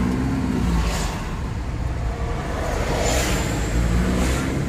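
Car engine hum and road noise heard from inside the cabin while driving, a steady low rumble with the engine note swelling briefly near the start and again near the end.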